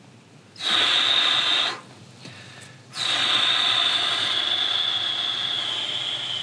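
A man's loud, whistling breaths: one short breath, then after a brief pause a long one whose whistle slowly drops in pitch as it fades.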